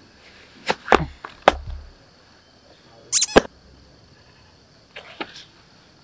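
Sneakers being pulled on and laced on a concrete step: a few short scuffs and knocks, with a brief high squeak about three seconds in.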